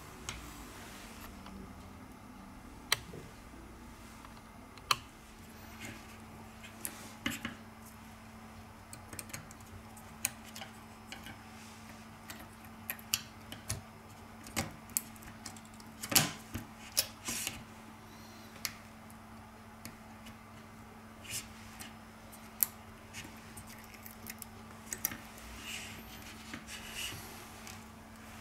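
Irregular sharp clicks and taps of small hand tools on a repair bench, as tweezers and instruments are set down and picked up, loudest about 16 seconds in. A steady low hum runs beneath.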